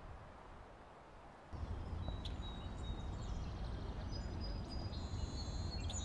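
Outdoor ambience: a steady low rumble comes in about a second and a half in, with birds chirping and whistling over it, the calls growing busier near the end.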